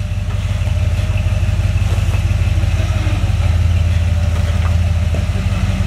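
Early Ford Bronco's engine running at low, steady revs, a deep even pulsing that grows a little louder about halfway through.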